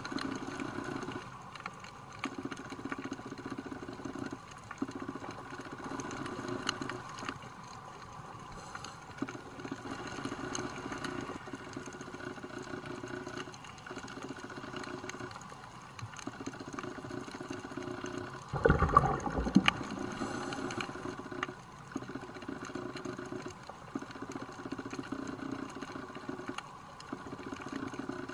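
Muffled underwater noise picked up through a camera housing: a low, hollow noise that comes and goes every second or two, with one louder rush about two-thirds of the way through.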